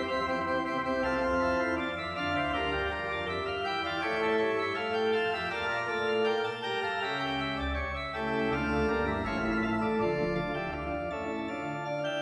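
Organ music: slow, held chords that change every second or so, with a steady level.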